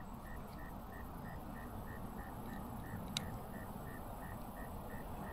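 Faint background hiss with a steady high chirp repeating about four times a second, and one sharp click about three seconds in.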